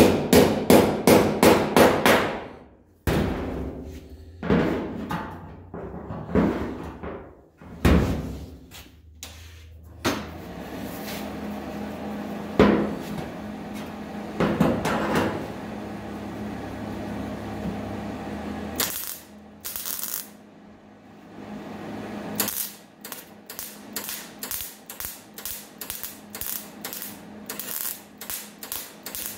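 Body hammer striking a sheet-steel body panel against a dolly in quick runs of sharp taps, about four a second at first, then more spaced: the cut panel lip is being tapped over to open up a tight seam gap. Near the end come a regular series of short MIG tack-weld bursts, about three a second, as the seam is welded back up.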